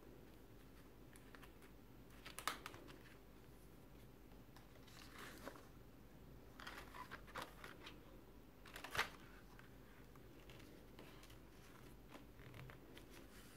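Quiet handling of a handmade paper mini album: a few brief rustles and soft taps as its cardstock and vellum pages are turned and moved. The sharpest come a couple of seconds in and again about two-thirds of the way through.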